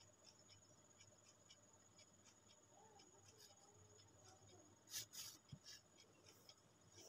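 Faint scratching of a black pen drawing short lines along a plastic ruler on paper. About five seconds in there is a louder brief scrape as the ruler is slid away across the paper.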